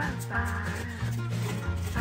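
Background music: a melody over a bass line that moves in short steady notes.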